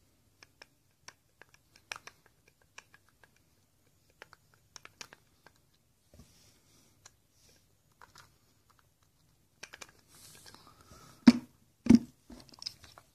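Faint scattered clicks and scrapes of a small flathead screwdriver turning a screw out of a baitcasting fishing reel, then two louder knocks near the end.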